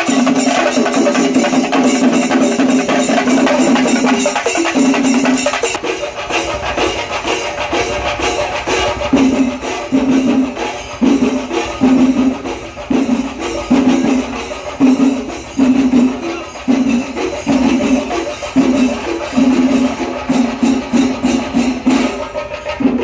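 Music: fast drumming with jingling cymbals under a wind instrument. The wind instrument holds one low note for about five seconds, then sounds it in short repeated blasts about once a second.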